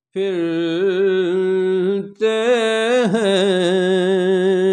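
A man singing an Urdu naat with no instruments, his voice holding two long drawn-out notes with a brief break about two seconds in, the second note wavering through an ornamental turn partway along.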